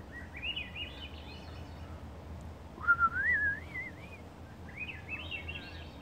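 A thrush singing three flute-like whistled phrases that spiral upward in pitch. The middle phrase, about three seconds in, is the loudest and lowest.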